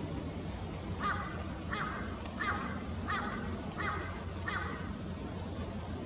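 A bird calls six times in an even series, about one call every 0.7 s, over a steady low background rumble.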